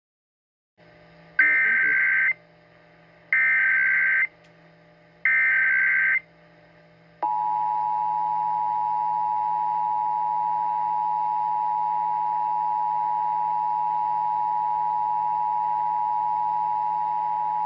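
Emergency Alert System broadcast tones: three roughly one-second bursts of the high, warbling SAME digital header, each followed by a short gap, then the steady EAS two-tone attention signal starting about seven seconds in and holding for about eleven seconds.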